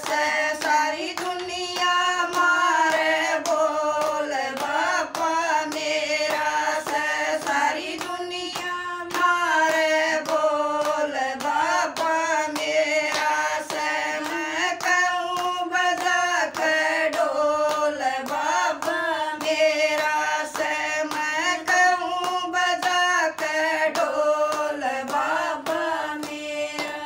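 A small group of women singing a Haryanvi devotional bhajan in unison, keeping time with steady hand-clapping at about two claps a second; the singing trails off near the end.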